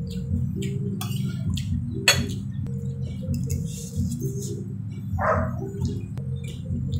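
Rice noodles being eaten: slurping, chewing and metal fork and spoon clicking against a plate, in short separate sounds over a steady background melody.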